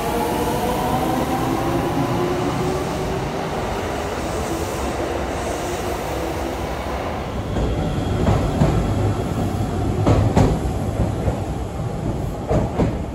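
Kintetsu electric train pulling out of an underground station: its motor whine rises in pitch and fades into steady running rumble. Later, train wheels clack over rail joints in pairs about every two seconds.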